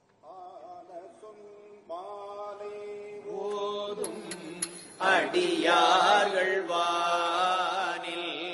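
A group of men chanting a Hindu devotional hymn together in long, held notes with a slight waver; the chant grows louder and fuller about five seconds in, with a few sharp clicks just before.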